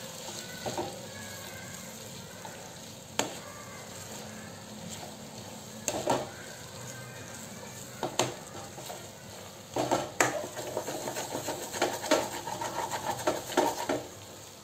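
Vegetable and tomato masala sizzling in a wok-style pan while a wooden spatula stirs and presses it, knocking and scraping against the pan every few seconds and in a quicker run near the end.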